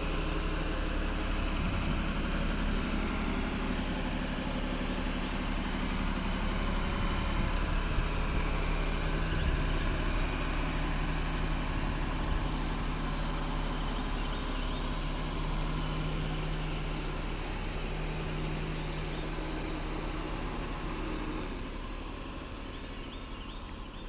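Honda NSX V6 engine idling steadily while warming up after a cold start, getting somewhat quieter near the end.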